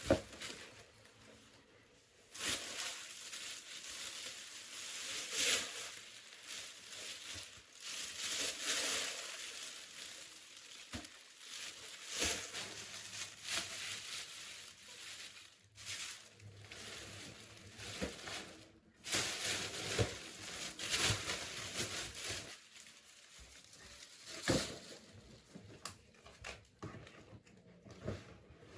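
Plastic packaging crinkling and rustling as it is handled, in irregular bursts with scattered light knocks.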